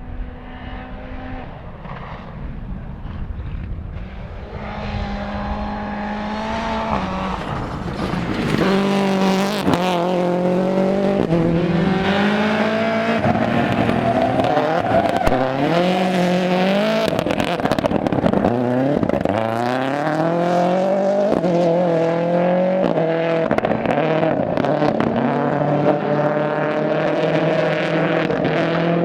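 Toyota Yaris AP4 rally car, faint at first and growing louder over the first several seconds, then its engine revving hard close by. The pitch climbs and drops back again and again as it changes gear.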